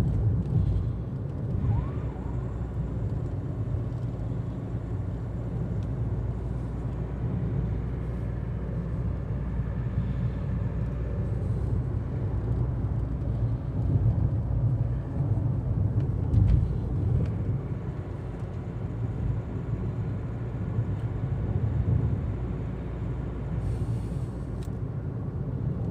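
Cabin noise inside a Hyundai Creta cruising at about 60 km/h with the AC and music switched off: a steady low rumble of road and engine noise, with no strong tyre hum.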